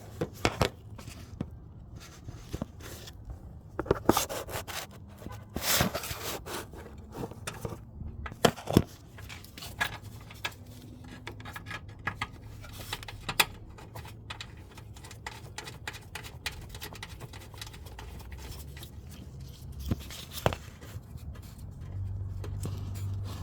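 Scattered clicks, taps and scrapes of a bolt with washers being screwed in by hand to fasten a new negative battery cable's ground terminal, with handling noise throughout.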